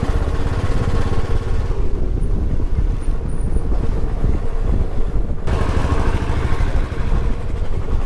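A motorbike's engine running at road speed while riding, with heavy wind buffeting the microphone.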